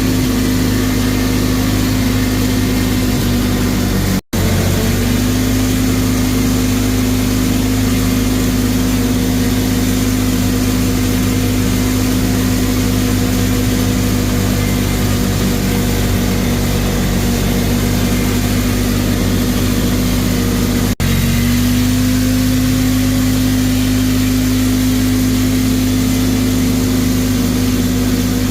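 ATV engine running at a steady speed, its pitch holding almost constant, with the sound cutting out briefly twice.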